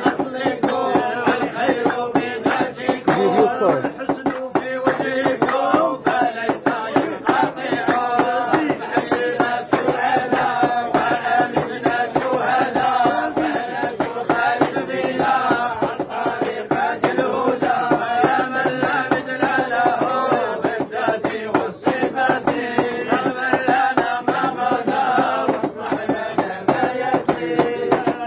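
A group of men chanting devotional praise songs for the Prophet (madih) together in a Sufi dhikr, over a steady rhythmic beat.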